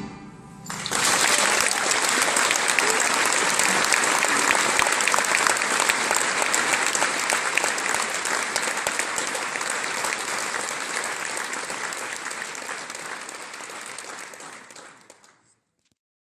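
Audience applauding, breaking out about a second in after the music stops, then slowly fading before cutting off near the end.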